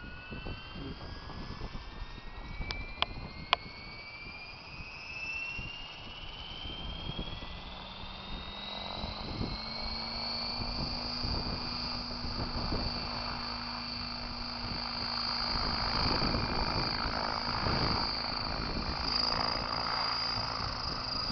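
AVH700V2 "Gazelle" radio-controlled camera helicopter spooling up: the whine of its drivetrain and rotor rises steadily in pitch for about ten seconds as the head comes up to its roughly 1600 rpm take-off speed, then holds steady as it lifts off and hovers. Three sharp clicks about three seconds in.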